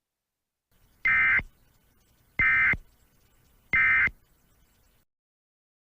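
Three short Emergency Alert System SAME data bursts, each a harsh buzzy electronic screech about a third of a second long, spaced about 1.4 s apart. Their brevity marks them as the end-of-message code that closes an EAS alert.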